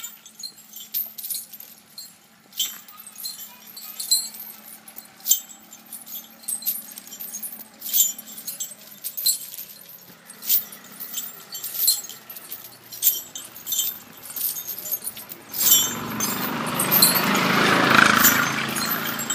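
Metal chains on a walking Asian elephant clinking irregularly, about one or two sharp jingles a second. Near the end a loud rushing noise swells for about three seconds and fades.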